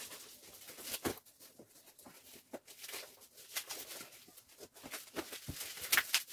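Hands rummaging through bubble wrap in a cardboard box: irregular crinkling and rustling, with a sharper crackle about a second in and a louder one near the end.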